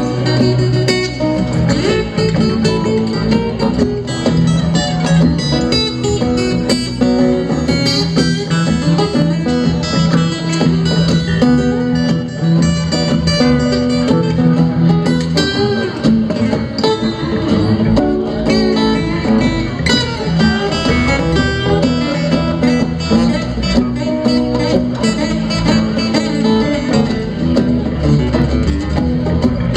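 Live band playing a blues number, led by plucked guitar over a steady bass line.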